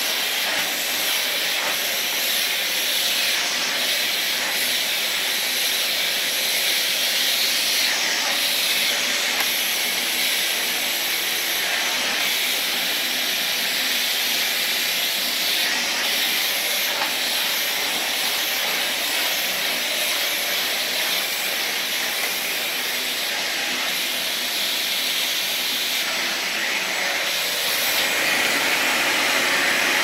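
Samsung SC18M21A0S bagless canister vacuum cleaner running steadily with a rushing of air as its floor nozzle works over a rug, growing a little louder near the end.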